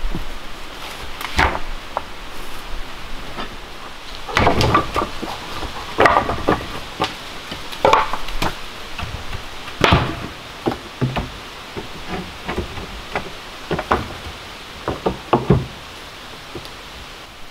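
Pieces of split firewood knocking and clattering as they are handled and set down, in irregular single clunks and short clusters.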